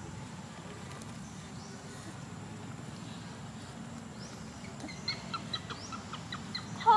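Steady low outdoor background, then from about five seconds in a run of short, quick clucking calls, several a second, growing louder near the end.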